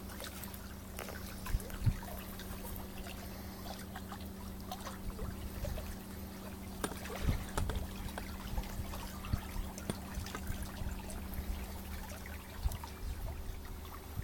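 Pool water trickling and lapping, stirred by a 12-volt electric trolling motor running underwater, with a steady low hum and small splashes.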